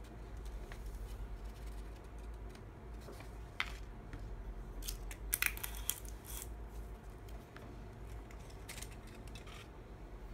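Paper being handled, with a scatter of light clicks and taps as small craft items are moved on a desk; a quick cluster of clicks comes about halfway through, over a steady low hum.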